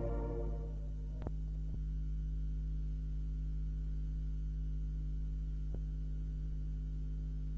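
Steady low electrical hum, with three faint clicks, as the last of the closing music dies away in the first second.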